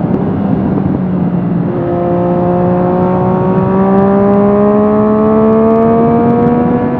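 Triumph Street Triple RS 765 cc inline-three engine through an Akrapovic slip-on exhaust, heard from the rider's seat while riding: the exhaust note holds steady, then from about two seconds in climbs slowly and steadily as the bike accelerates in gear, over a steady rush of wind.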